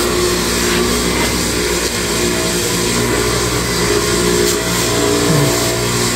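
Small motorbike engine running at a steady idle.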